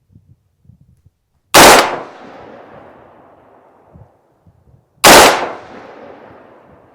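Two single shots from a Diamondback DB15 AR-15 rifle, about three and a half seconds apart, each followed by an echo that fades over more than a second.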